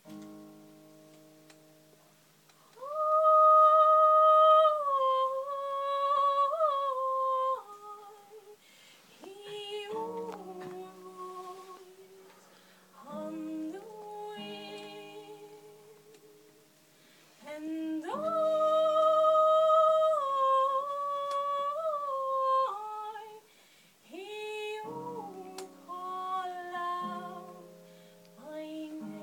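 A woman singing a slow Celtic song into a microphone, in long held phrases with short pauses between them, over soft, low sustained notes.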